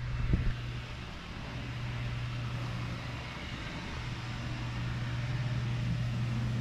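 Steady low mechanical hum with a hiss over it, and a single short knock just after the start.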